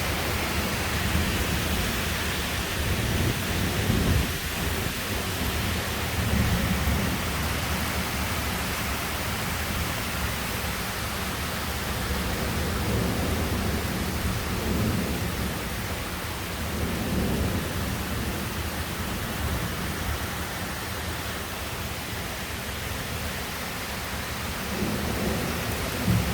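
Heavy rain falling steadily in a thunderstorm, with low rolls of thunder rumbling through several times, the strongest about four seconds in.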